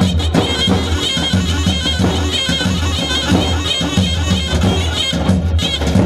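Loud Kurdish folk dance music for a halay: a shrill, reedy wind-instrument melody over a steady low drone and a regular beat.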